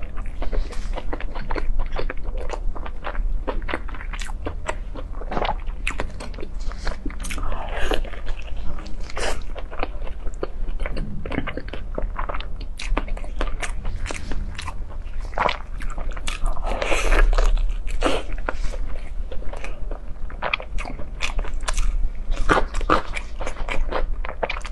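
Close-miked eating sounds: a person biting into and chewing crispy fried food. Many quick, irregular crunches and crackles, with a few longer wet mouth sounds.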